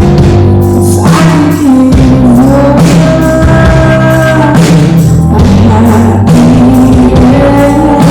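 Live rock band playing loudly, with electric guitar and drums; a sung or lead melody line glides over the chords.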